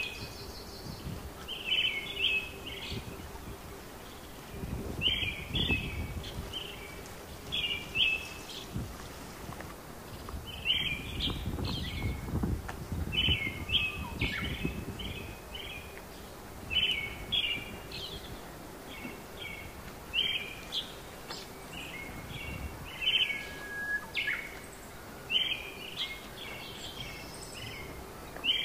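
A songbird singing short, repeated phrases of high chirping notes, one phrase every two to three seconds, over faint low outdoor rumble.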